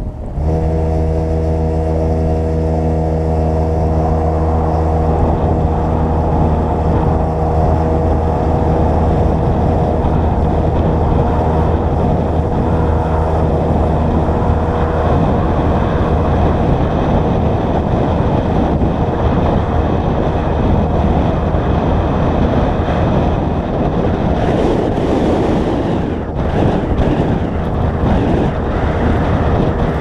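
Ram 2500 pickup truck engine running at a steady pitch under wind noise on the microphone. About halfway through, the engine tone fades into a steady rushing noise, with brief louder hissing a few seconds before the end.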